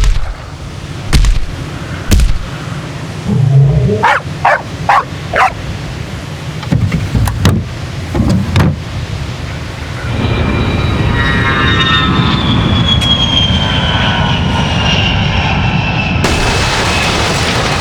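A run of separate sound effects: a few sharp knocks, a cluster of short yelps, more brief bursts, then from about ten seconds a steady rumble with a slowly falling squeal.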